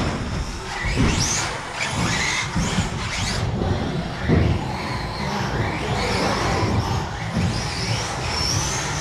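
Radio-controlled race cars running on the track: motors whining up and down in pitch as the cars accelerate and brake, over a steady rough rumble of tyres and running gear.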